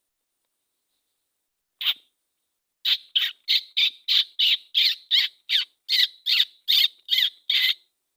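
A wild bird calling: one harsh note about two seconds in, then a run of about thirteen harsh notes at roughly three a second.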